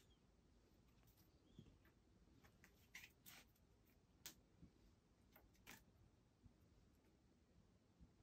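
Near silence: room tone with a few faint, short clicks and ticks scattered through it.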